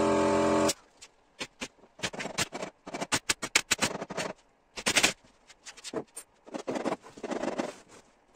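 An air compressor's motor running with a steady hum, cutting off abruptly within the first second. Then irregular clicks, knocks and rustling as the leather upholstery cover is handled and pulled over the recliner's frame, with a quick run of clicks about three seconds in.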